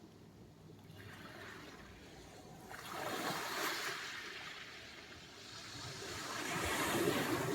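Sea surf: waves breaking and washing in, in swells of rushing water. One surge rises about three seconds in and fades, then a second, louder one builds to a peak near the end.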